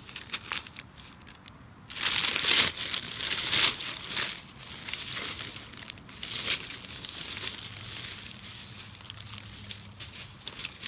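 A bag of birdseed rustling as it is handled and checked, in irregular bursts that are loudest about two seconds in and again past the middle.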